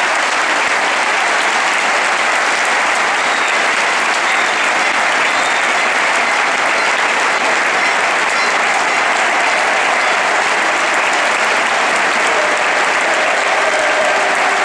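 A large football-stadium crowd applauding steadily, a dense unbroken sound of many hands clapping, saluting a player on his lap of honour.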